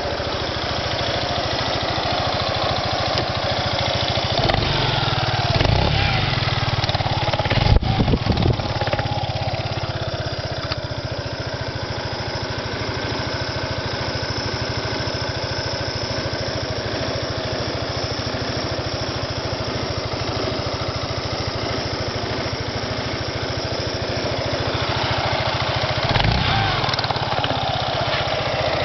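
Yamaha Majesty 250 scooter's single-cylinder four-stroke engine idling steadily, with brief louder swells about six to eight seconds in and again near the end.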